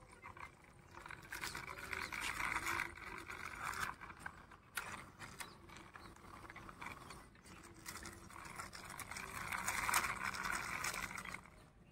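Plastic toy front loader pushed by hand across rough concrete: its plastic wheels roll and rattle with a scraping, gear-like clatter. It comes in two runs, one starting about a second in and one about eight seconds in, the second louder.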